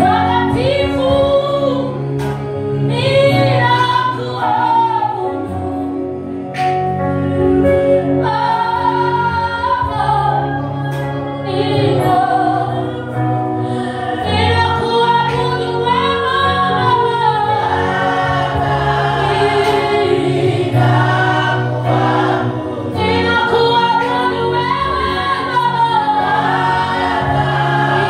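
Gospel choir singing a worship song, with held backing notes underneath the moving vocal line.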